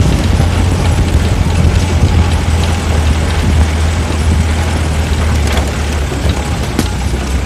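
Off-road vehicle driving: a steady, loud low rumble with road noise and a few light knocks.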